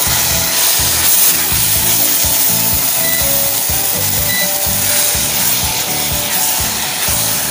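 Wooden spatula scraping and stirring a vegetable masala sizzling in a stainless steel pan. Background music with a steady beat plays under it.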